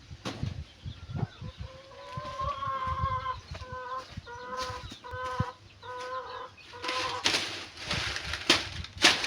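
A chicken calling: one long note, then a string of short repeated notes. Near the end come a run of sharp crackling noises, the loudest about nine seconds in.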